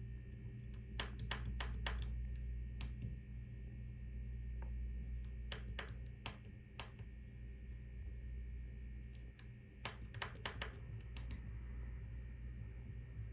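A small key clicking as it is pressed, in short quick groups: about five clicks a second in, a few more in the middle, and a longer run near the end. A steady low hum runs underneath.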